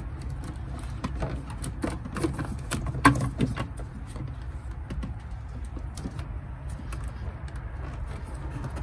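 Scattered clicks and knocks of plastic vacuum pipe and fittings being twisted and worked loose by hand in a car's engine bay, with one sharper knock about three seconds in, over a low steady rumble.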